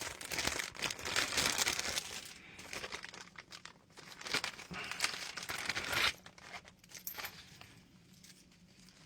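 Plastic packaging being handled and crinkled as an item is unwrapped: dense crinkling for the first two seconds, another spell around four to six seconds in, then only faint rustles.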